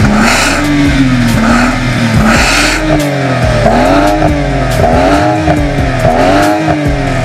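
BMW F10 engine revved repeatedly through its remote-controlled valve exhaust, the pitch rising and falling about once a second.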